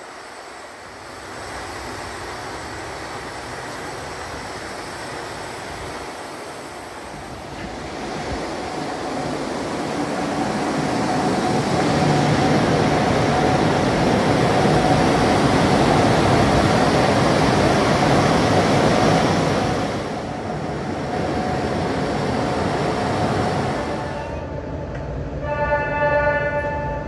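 The museum's inclined cable car running in its tunnel shaft: a rumbling ride noise that builds over about ten seconds, stays loud, then eases about twenty seconds in. Near the end a rapidly pulsing tone starts.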